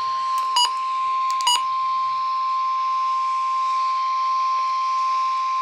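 NOAA Weather Radio 1050 Hz warning alarm tone: one steady, loud, pure high tone that signals a weather warning is about to be broadcast. Two very short, sharper beeps cut in over it about half a second and a second and a half in.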